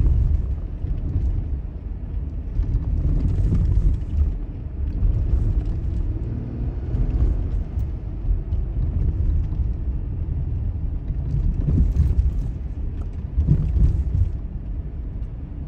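Low, steady rumble of a car driving, heard from inside the cabin: road and engine noise, with a couple of brief louder knocks in the later seconds.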